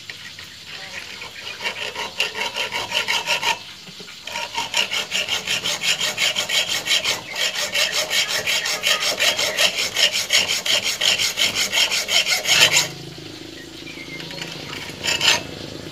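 Hand hacksaw cutting through a steel bolt: quick, even back-and-forth rasping strokes, with a short pause about three and a half seconds in. The sawing stops about thirteen seconds in.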